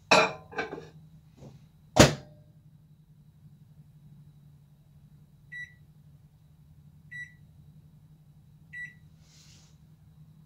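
Microwave oven beeping three times, evenly spaced about a second and a half apart, signalling the end of a two-minute heating cycle, over a low steady hum. A few knocks come early on, the loudest a sharp knock about two seconds in.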